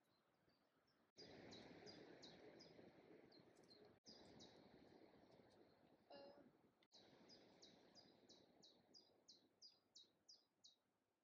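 Faint songbird singing outdoors: long series of short, high chirps, each sweeping downward, about two to three a second, over a soft background hiss. A brief, lower call cuts in once about six seconds in.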